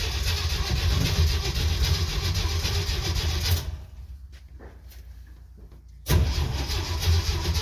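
1969 Jeep CJ5's starter cranking the engine over without it catching, stopping about three and a half seconds in with a few faint clicks, then cranking again about six seconds in. This is a hard start after sitting about seven months on a battery that had been dead.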